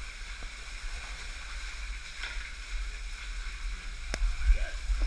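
Low rumble of a body-worn camera being jostled while its wearer moves, over a faint wash of flowing water, with one sharp click about four seconds in.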